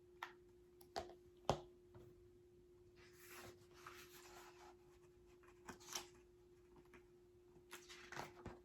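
Faint handling of a picture book being opened and its pages turned: a few light taps and clicks, then a soft paper rustle about three seconds in, with a steady low hum underneath.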